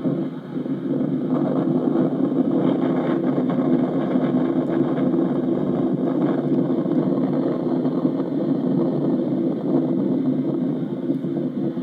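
Hino bus's diesel engine running while under way, heard from inside the cabin; it grows louder over the first second or so, then holds a steady drone.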